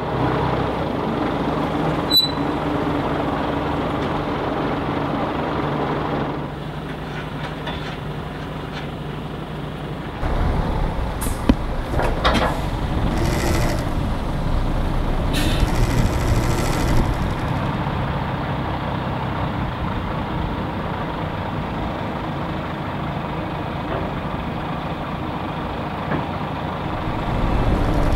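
GINAF off-road truck's diesel engine running steadily under load, getting louder and heavier about ten seconds in, with several short hisses around the middle.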